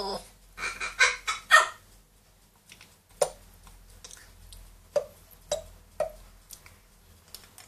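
A pet parrot calling: a quick run of four loud, raspy calls, then several sharp single clicks spaced about half a second to two seconds apart.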